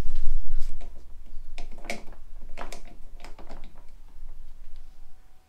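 A few light clicks and knocks from jump starter clamps and cables being handled and clipped onto a car battery's terminals, after a low rumble in the first second.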